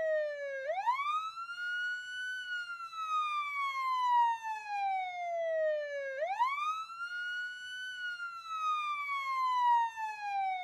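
Emergency-vehicle siren sounding a slow wail. The pitch climbs quickly about half a second in and again about six seconds in, holds briefly, then slides slowly down each time.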